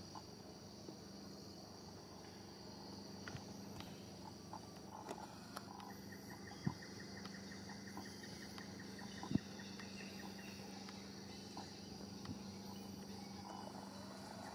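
Steady high-pitched chorus of forest insects, with a second, faster pulsing insect trill joining about six seconds in. A few sharp clicks break through, the loudest about nine seconds in.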